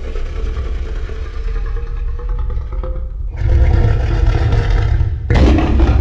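Godzilla sound effect: a heavy, deep rumble with a faint steady tone over it. It jumps suddenly louder about three seconds in and again near the end.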